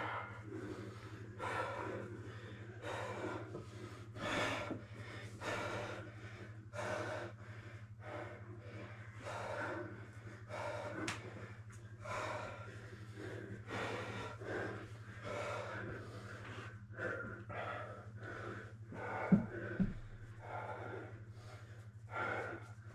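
A person breathing hard while grappling, with noisy breaths in and out about every second and a half. Two short thumps half a second apart come a little after the three-quarter mark, over a steady low hum.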